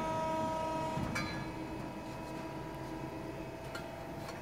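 Steady hum of a CNC hydraulic press brake, with a higher whine that fades about a second in, and a few light metallic clicks.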